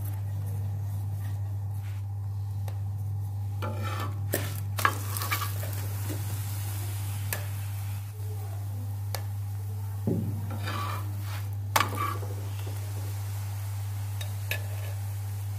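A steel spoon scraping and clicking against a hot iron tawa as ghee is spread over an aloo paratha, with the fat sizzling; the scrapes come in two clusters, near the middle and about two-thirds through. A steady low hum runs underneath.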